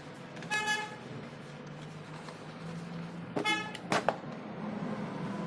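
Two short vehicle horn toots about three seconds apart, with a sharp click just after the second, over a faint steady hum.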